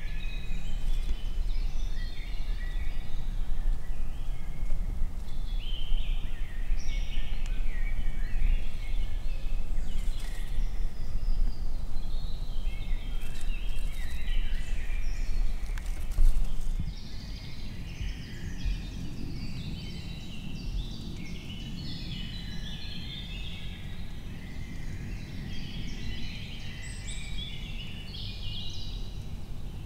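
Several songbirds singing in woodland at evening, many short overlapping chirps and warbles throughout. Underneath runs a low rumbling noise that drops away a little past halfway.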